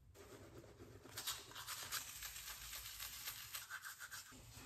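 Manual toothbrush scrubbing teeth: faint, quick scratchy back-and-forth strokes of the bristles through toothpaste foam, starting about a second in.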